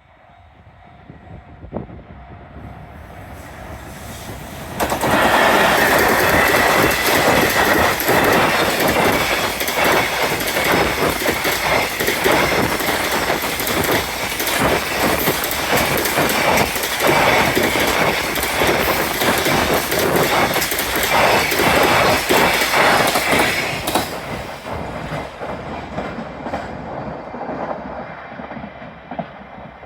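EF210 electric locomotive hauling a freight train past: it grows louder as it approaches, jumps sharply in loudness about five seconds in, then the wagons' wheels clatter rapidly over the rail joints for nearly twenty seconds before the sound dies away.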